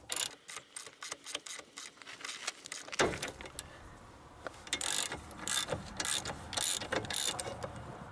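A ratcheting wrench clicking as it turns the forcing screw of a ball joint separator tool, with metal clinking against the tool. The clicks come in two runs with a short pause a little before halfway.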